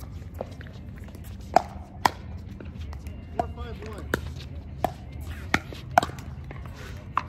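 Pickleball paddles striking the ball during a rally: about nine sharp pocks, irregularly spaced half a second to a second apart, with faint voices in the background.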